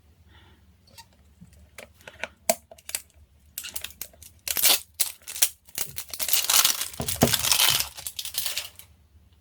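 Ice slime handled by hand, crackling: scattered clicks and crackles at first, turning about three and a half seconds in to dense, loud crackling that dies away near the end.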